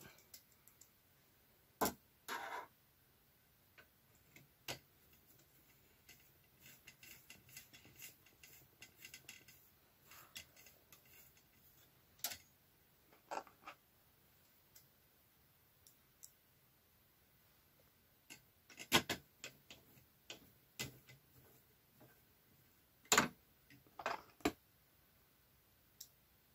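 Screwdriver turning screws into a Singer 360 knitting machine's knit contour unit, with small metal and plastic clicks and ticks. A busy run of light ticking falls in the middle, and sharper single clicks come about two seconds in and again near the end.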